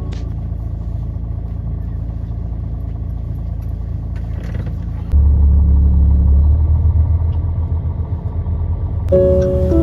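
Low, steady rumble of a moving road vehicle, which gets abruptly louder and deeper about five seconds in. Background music comes back in near the end.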